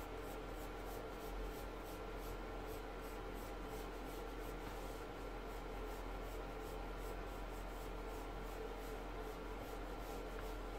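Pencil sketching on sketchbook paper: a steady run of light, repeated short strokes as a circle is drawn in lightly.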